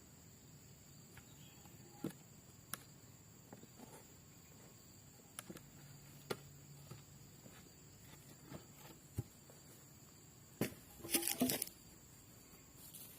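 Scattered light knocks and clicks over a faint low hum, with a short cluster of louder knocks near the end.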